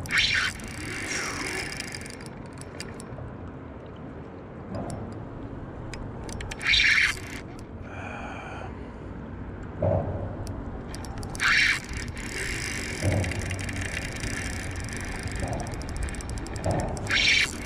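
Drag of a Shimano Sahara 2500 spinning reel giving line in four short buzzing bursts as a hooked fish runs against it.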